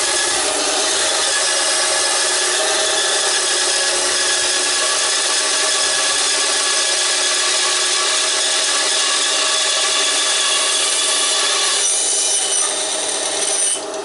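WEN BA3959 9-inch belt-driven benchtop band saw ripping a split of firewood lengthwise under load: a steady rasping of the blade through the wood over the motor's hum. Near the end the blade breaks through and the sound drops to the saw running free.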